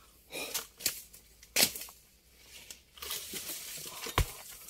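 Oil palm harvesting chisel (dodos) on a long pole jabbing at a fruit bunch's stalk in the palm crown: a few sharp chopping knocks among the rustle and tearing of dry fronds, with a heavy thud near the end.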